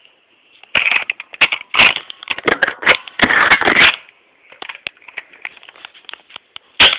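Handling noise: loud crackling and rustling with many sharp clicks, from about a second in to about four seconds, then sparser ticks and one sharp knock near the end.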